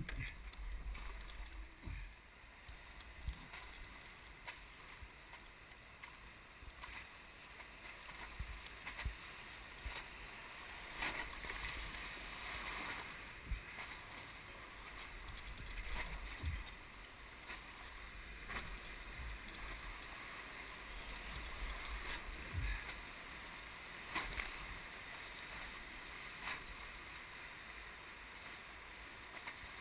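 Whitewater rushing past an inflatable raft running a rapid, a steady rush with irregular splashes and knocks against the raft and camera scattered through it.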